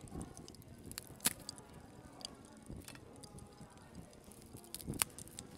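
Cling film being peeled off a slab of chocolate truffle mixture: soft crinkling with a few sharp crackles, the sharpest about a second in and near the end.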